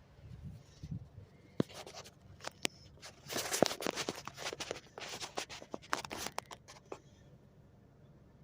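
Handling noise close to the microphone: a few sharp clicks, then bursts of rustling and scraping, over a faint steady low hum.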